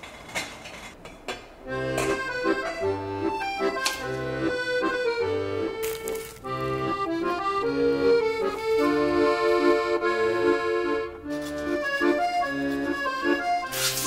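Instrumental background music with held chords over a stepping bass line, starting about two seconds in, after a couple of soft clicks.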